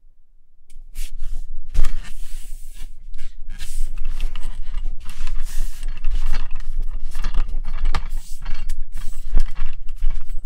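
Handling noise from a Neewer NW-088 aluminium boom pole, heard through the microphone on its end: hands gripping and twisting the pole's sections and plastic collars send continuous scraping and rubbing with many knocks and clicks straight down the pole. It starts about a second in and is loud, a sign that the pole transmits handling noise to the mic instead of damping it.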